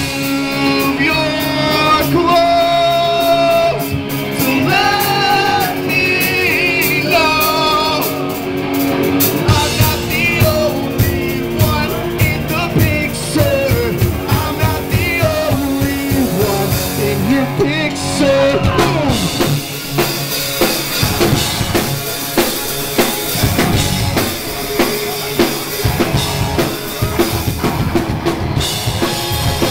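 Live rock band playing a song: singing over electric guitars, bass guitar and drum kit. The singing is most prominent in the first half; from about two-thirds of the way in, the drums come to the front with steady, evenly spaced hits.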